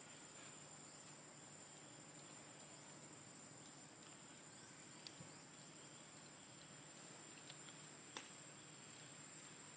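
Near silence outdoors, with a faint, steady, high-pitched insect drone throughout and two faint clicks, about five and eight seconds in.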